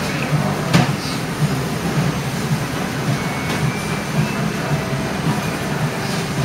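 Steady low rumbling din of a ramen shop, with a couple of light clicks about a second in.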